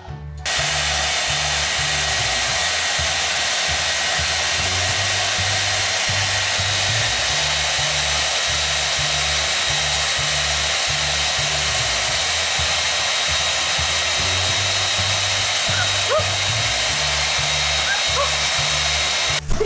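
Handheld hair dryer running steadily, a loud even rush of air that starts about half a second in and stops just before the end, over background music.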